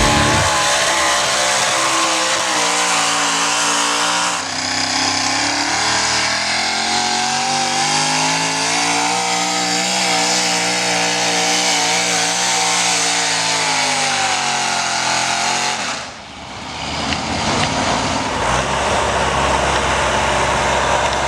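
Engine of a pulling truck or tractor running hard at full throttle under load, its pitch swelling and then sagging. About 16 seconds in it drops away sharply, and a rougher, noisier engine sound follows.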